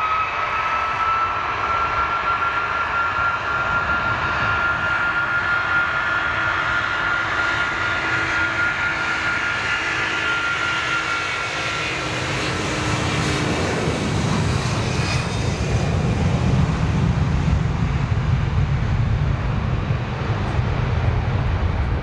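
Airbus A330 freighter's twin jet engines at high power on the take-off roll. A steady, slightly rising whine leads for the first dozen seconds, then gives way to a deep rumble that is loudest in the second half as the aircraft passes and heads away down the runway.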